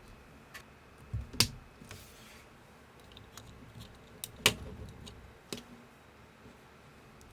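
Plastic building bricks being handled and snapped together: a handful of sharp clicks, the two loudest about a second and a half and four and a half seconds in, with a brief rustle of pieces between them.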